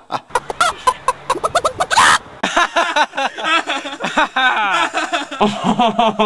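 People laughing in quick, high-pitched bursts. There is a louder breathy burst about two seconds in, and some laughs slide down in pitch.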